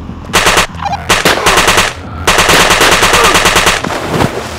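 Three bursts of rapid automatic blaster fire, the last and longest lasting about a second and a half.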